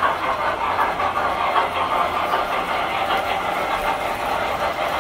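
Tinplate model train running on three-rail metal track: a steady whirring of motor and wheels with faint ticking of wheels over the rails.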